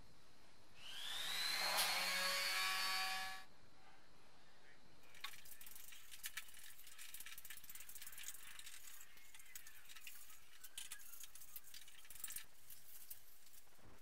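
A small power tool spins up briefly with a rising whine for about two and a half seconds. After that comes irregular, scratchy brushing on bare steel as rust is worked off the strut tower panel.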